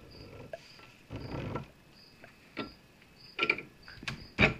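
Hard knocks and clicks of a PVC pipe being handled and set into place, the sharpest strikes near the end, with a soft rustle just after a second in. A cricket chirps faintly and evenly throughout.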